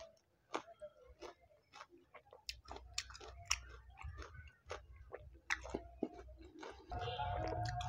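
Close-up eating sounds of pani puri: wet chewing with many sharp crunches and clicks as the crisp fried puri shells break in the mouth. A low steady hum comes up near the end.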